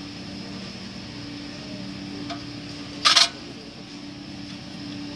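A steady low hum, and one short, loud noise about three seconds in as the tin-can wood gas stove and its lit buddy burner are handled.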